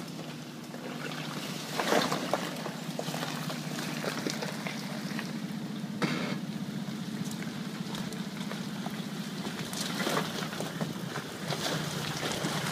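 Toyota Land Cruiser engine idling steadily, heard close to the truck, with a few brief knocks about 2, 6 and 10 seconds in.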